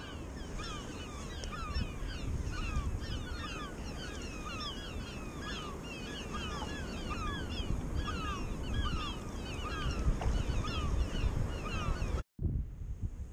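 Many seabirds calling at once from a colony, a dense, overlapping chatter of short chirping calls over a low rumble of wind and sea. It cuts off suddenly near the end.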